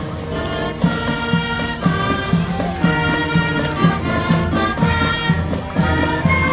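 Band music playing in a parade, with a melody over a steady beat.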